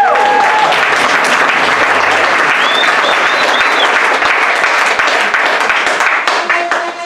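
Audience applauding; the clapping thins out near the end.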